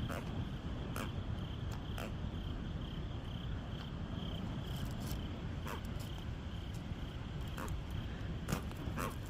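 Night insects chirping in a steady, pulsing high trill over a low, constant rumble, with scattered short clicks and a few quick falling chirps.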